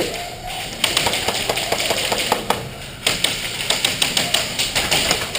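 Airsoft guns firing rapid strings of shots, sharp clacks in quick succession: one run starting about a second in, then a denser run from about three seconds in.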